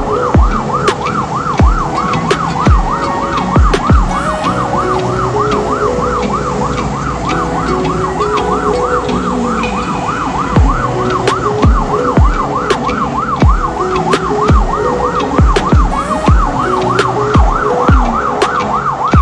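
Emergency-vehicle siren in a rapid yelp, about four rises and falls a second, sounding without a break close behind the truck, over the truck's road and engine noise and frequent low thumps.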